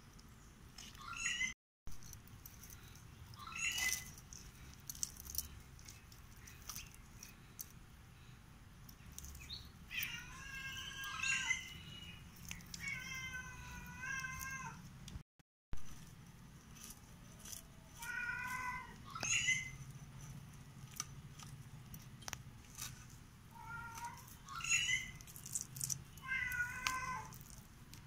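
A domestic cat meowing repeatedly, a call every few seconds, some short and some long and drawn out, with faint short clicks in between.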